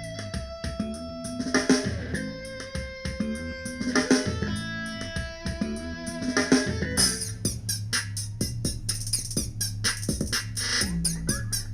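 Music played through an XDOBO Draco Mini Bluetooth speaker: a guitar-led track with drums, changing about seven seconds in to a denser drum-machine beat with sharp hi-hat ticks and steady bass.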